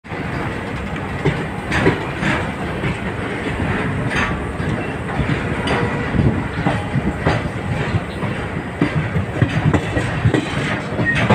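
Freight train of covered BCACBM automobile-carrier wagons rolling past at close range. Its wheels make a steady rumble on the rails, broken by irregular clacks over the rail joints.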